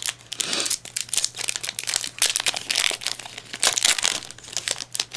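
Foil booster-pack wrapper of a Yu-Gi-Oh Mega Tin 2014 pack crinkling with many sharp crackles as it is handled and torn open.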